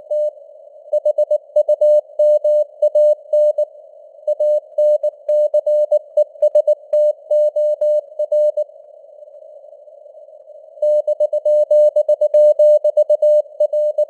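Morse code (CW) sent at 19 words per minute as a keyed tone of about 600 Hz, in dots and dashes over a narrow band of simulated radio hiss. The sending pauses for about two seconds just past the middle, leaving only the hiss, then starts again.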